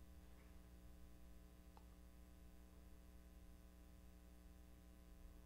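Near silence: room tone with a steady low electrical hum and one faint tick a little under two seconds in.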